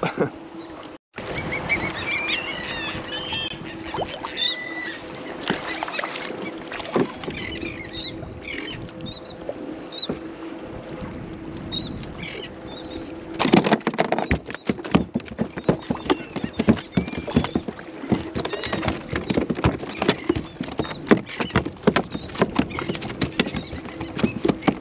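A hooked bluefish thrashing in the water at the side of a plastic kayak and then flopping aboard: a dense, irregular patter of splashes and knocks that starts about halfway through. Before that there is a steady hum with scattered short, high chirping calls.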